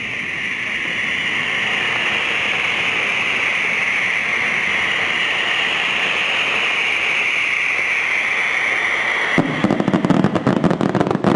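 Fireworks: a long, steady hiss that slowly falls in pitch, then, about nine seconds in, a burst of dense, rapid crackling.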